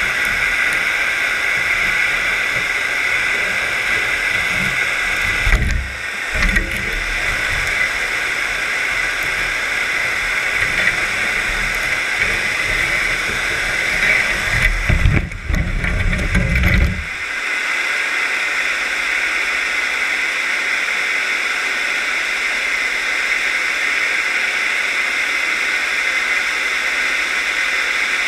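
Steady hiss of water rushing past an underwater camera housing on a scallop dredge under tow, with low uneven rumbling and knocking from the dredge dragging over the gravel seabed. About two-thirds through the rumble stops suddenly as the dredge comes off the bottom, leaving only the steady water hiss.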